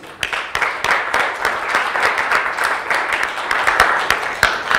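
Audience applauding: many hands clapping in a dense, steady patter that starts at once and begins to die away at the very end.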